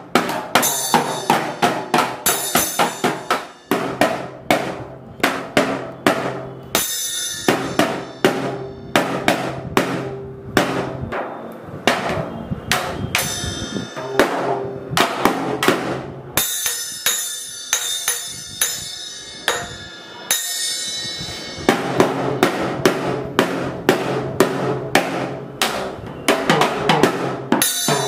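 Child's plastic toy drum set beaten with plastic mallets: quick, irregular hits on the drums, several a second, with the small cymbal ringing among them.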